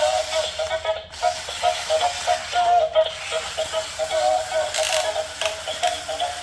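Electronic music playing from a Powerman RC toy robot's built-in speaker, with a mechanical rattle.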